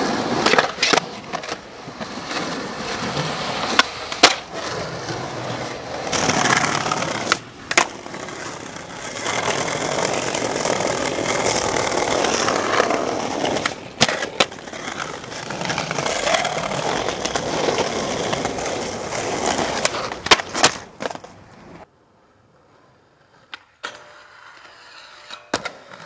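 Skateboard wheels rolling on concrete, broken by sharp clacks of the board popping, landing and grinding on a concrete ledge, trick after trick. Near the end the sound drops away almost to silence before fainter rolling returns.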